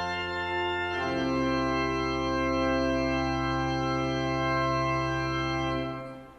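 Organ playing the close of a postlude: sustained chords, a change of chord about a second in, then a final chord held for several seconds that stops near the end with a short fade.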